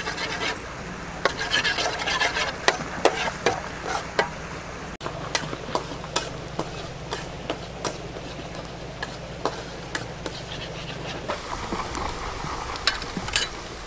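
Metal spatula scraping and tapping against a steel wok in quick, irregular clicks while minced aromatics fry in hot oil with a light sizzle.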